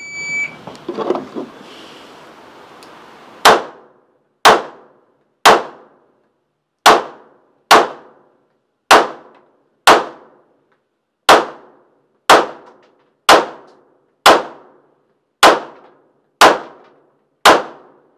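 Shot-timer start beep, then pistol fire: about fifteen single shots at roughly one per second, each with a short ringing tail.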